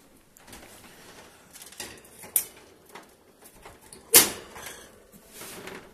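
Wire pet cage door being shut and fastened: light rattling and small clicks, then one loud metal clack just after four seconds in.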